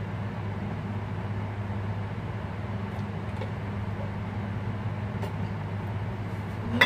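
Steady low machine hum from a running appliance, unchanging throughout, with a few faint clicks and one short sharp click near the end.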